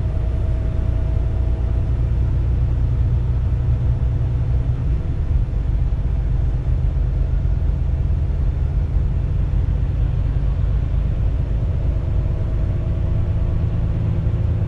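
Mercedes-Benz Actros truck's diesel engine and road rumble heard inside the cab while cruising on the motorway, a steady low drone. The engine note eases slightly about five seconds in and strengthens again near the end.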